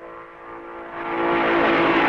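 A 1950s Grand Prix racing car's engine at full speed, growing steadily louder as it approaches, its pitch starting to drop near the end as it comes past.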